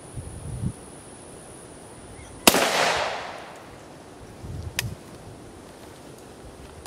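A single shot from a Yugoslavian M70 O-PAP AK-47 firing 7.62×39 mm Wolf steel-cased ammunition, about two and a half seconds in, followed by an echo that trails off over about a second.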